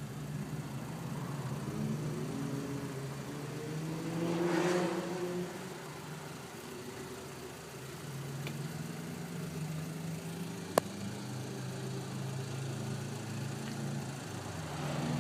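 Volkswagen Golf GTI Edition 35's turbocharged 2.0-litre four-cylinder idling, revved once about four seconds in, the pitch climbing and falling back to idle, with another rev starting near the end. A single sharp click about eleven seconds in.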